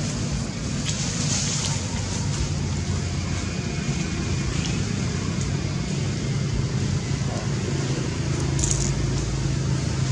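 A motor running steadily with a low hum, over a constant noisy background.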